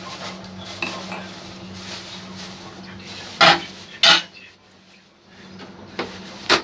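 Metal ladle stirring boiled kidney beans in water in an aluminium pot, with light clinks against the metal. Three loud clanks of metal on metal follow: two about half a second apart around the middle and one near the end.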